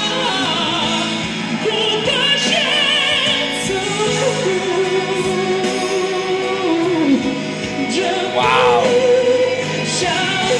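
Live ballad performance: a male singer's very high notes with wide vibrato over sustained musical accompaniment, swooping up into a long held note about eight seconds in.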